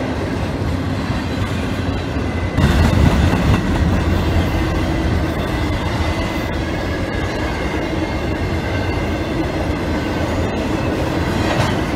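Double-stack container freight train passing close by: steady rumble and clatter of steel wheels on the rails, with a thin high wheel squeal. It grows louder about two and a half seconds in.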